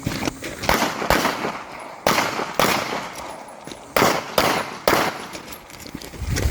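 Pistol shots fired in an uneven string: about seven loud reports over several seconds, each with a short echo, during a timed stage of a shooting match.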